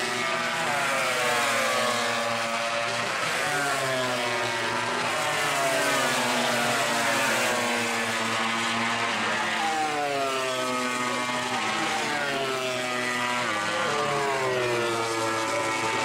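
Several MotoGP racing motorcycles' 1000 cc four-cylinder engines running at high revs, their overlapping pitches climbing and dropping as the bikes accelerate, change gear and brake.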